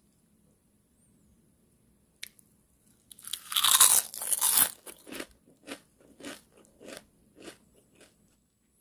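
Someone biting into a piece of fried dried-pollock skin with one loud, long crunch about three seconds in, then chewing it with short crunches at about two a second; the chip is fried very crisp.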